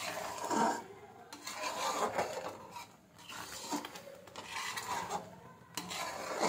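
A utensil stirring melting jaggery and scraping across the bottom of a pan in a series of irregular rasping strokes. The jaggery syrup is being cooked down until its water dries off, for sesame laddoos.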